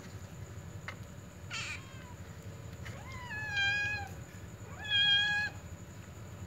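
Kittens meowing: a short, high cry about a second and a half in, then two longer meows of about a second each, the second one the loudest.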